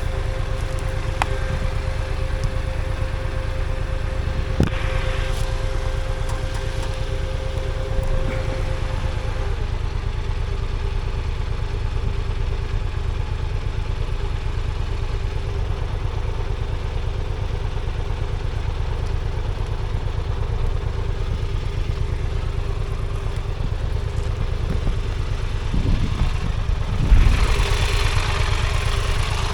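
Motorcycle engine running steadily at low revs, as at idle. Near the end there is a knock, then a rising hiss.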